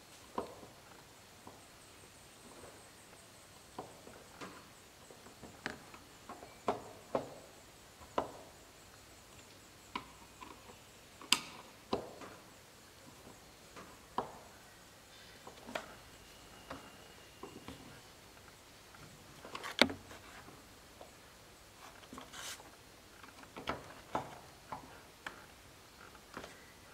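Irregular light clicks, taps and scrapes of a screwdriver working at the side-mirror mount inside a Mercedes W124 door, with one louder knock about twenty seconds in.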